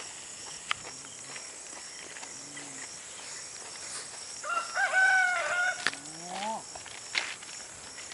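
A rooster crowing once midway through, a drawn-out call of about a second and a half that ends on a short rise. Insects chirp steadily behind it.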